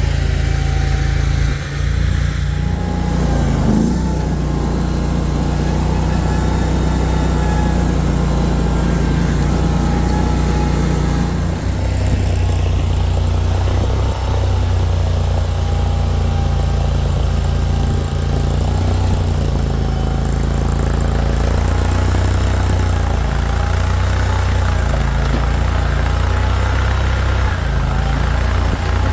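Mini skid steer engine running steadily as the machine works, its note shifting and dipping a few times under changing load.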